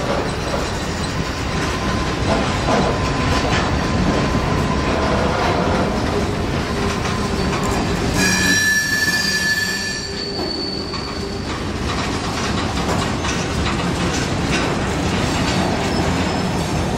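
Freight train cars (covered hoppers and a tank car) rolling past: a steady noise of steel wheels running on rail, with a high wheel squeal setting in about eight seconds in and lasting about two seconds.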